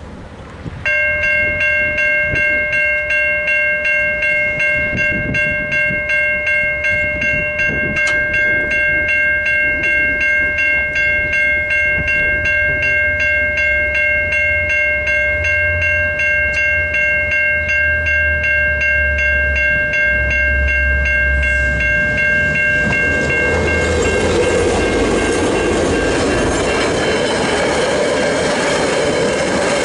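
Level-crossing electronic bells (Safetran Type 3 e-bells) start ringing about a second in, a fast, evenly repeated chime that rings on. A train arrives under them: a low rumble builds, then from about three-quarters of the way through the rolling wheel and rail noise of the passing train drowns the bells.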